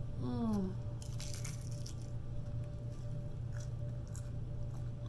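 Close-miked eating of Chinese takeout: a short falling "mm" just after the start, then crunching and a few light clicks, over a steady low electrical hum.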